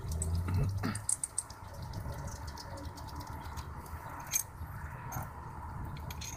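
Scattered light metallic clicks and clinks of cylinder head bolts and their washers being handled as they come out of a 1994 Mazda MX-3's cylinder head, with a sharper click about four seconds in.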